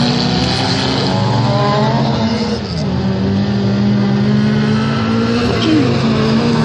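Dirt-track racing car engines running hard at high revs, their pitch rising and falling as the drivers shift and lift, with noticeable drops about two and a half seconds in and again near the end.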